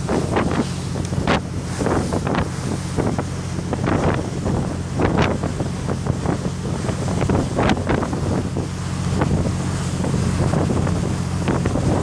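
Gusts of wind buffeting the microphone in irregular blasts, over the steady low drone of the engine of the boat it is recorded from.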